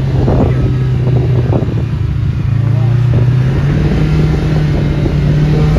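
Side-by-side UTV engine running under way, its pitch climbing slowly and steadily, with scattered knocks and rattles.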